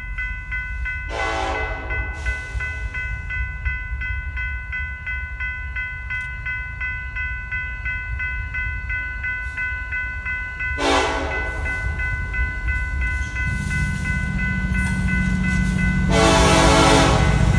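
Diesel freight locomotive's air horn blowing three times as the train approaches a grade crossing: a long blast about a second in, a short one about eleven seconds in, and a long one near the end. Under it the crossing's warning bell dings steadily, and the locomotive's engine rumble grows louder as it nears.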